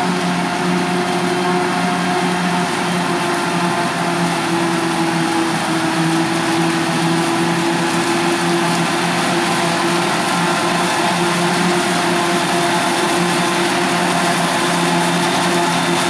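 Krone BiG X 530 self-propelled forage harvester chopping maize, with a Massey Ferguson tractor and trailer running alongside. Their engines make a steady drone over a continuous hiss.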